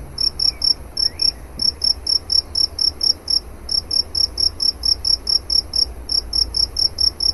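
Cricket chirping: a steady run of short, high chirps, about five a second, with a few brief gaps, over a faint low rumble.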